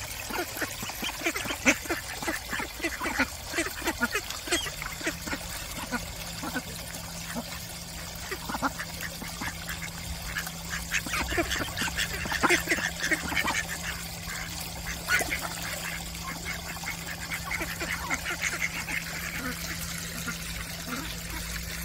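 Mallard ducks feeding on seed at the water's edge: rapid clicking and dabbling of bills on rock and in shallow water, with some quacks. A faint steady low hum starts about five seconds in.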